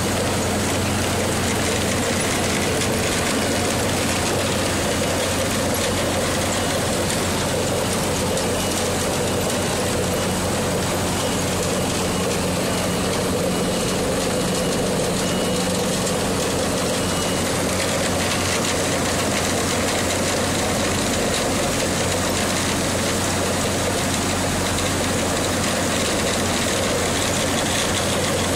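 Apple washing and grading line running: a potato grader with spiral rollers and conveyor belts gives a steady machinery hum under the continuous noise of apples rolling and tumbling along the rollers and belt.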